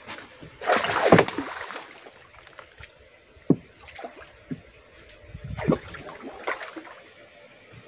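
Water splashing and sloshing against the side of a small wooden boat, loudest about a second in and again briefly near the end, with a few sharp knocks on the hull in between.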